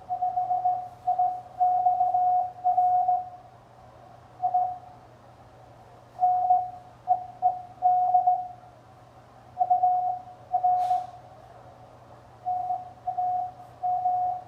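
Morse code (CW) from an amateur radio transceiver: a single steady tone keyed on and off in dots and dashes, with pauses between groups, over a faint hum. A brief hiss-like noise about eleven seconds in.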